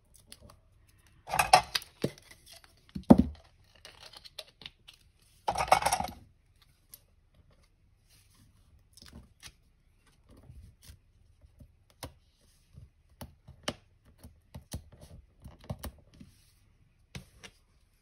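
Backing being peeled off two Stampin' Dimensionals foam adhesive squares: two short tearing sounds, about a second and a half in and again about five and a half seconds in, with a sharp knock between them. Then scattered light taps and clicks as paper and card are handled.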